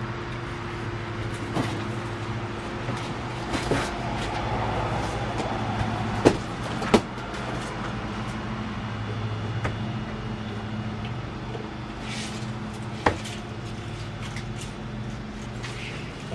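A steady low mechanical hum with a few sharp knocks and clicks, the loudest two close together near the middle and one more later.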